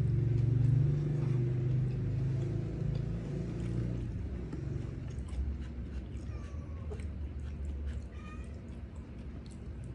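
A domestic cat yowling in a long, drawn-out call, loudest in the first few seconds, followed by fainter, shorter meows in the second half.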